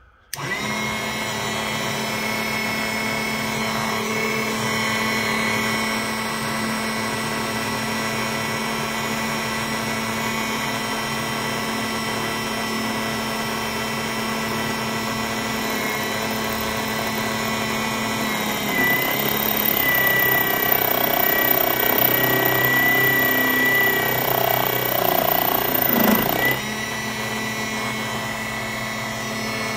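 Metalworking machine tool running, with a steady high whine over a low hum. For about seven seconds in the second half it grows louder and rougher, the sound of metal being cut.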